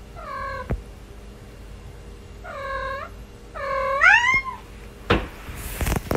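A kitten meowing three times, short high calls, the third longer and louder with its pitch rising and then falling. A brief burst of noise follows near the end.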